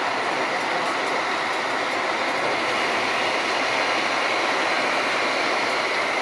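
Komptech Axtor shredder running and chewing through wood as a Liebherr excavator feeds it: a loud, steady mechanical noise.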